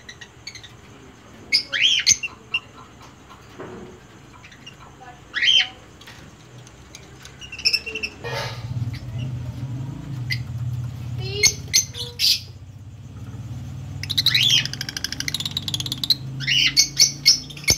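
Lovebirds giving shrill chirps and squawks in short separate calls, with a burst of rapid chatter later on. A low steady hum comes in about halfway through.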